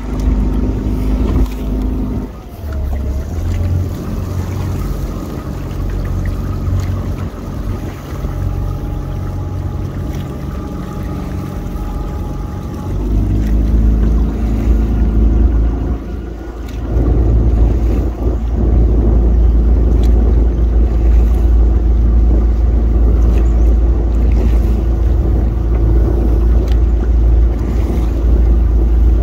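Motorboat engine running at a steady pace, its pitch shifting a few times, with heavy wind rumble on the microphone.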